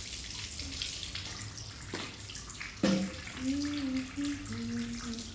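A steady water-like noise with a few knocks, like water being handled or splashed, then a woman softly humming a slow, wavering tune from a little past halfway.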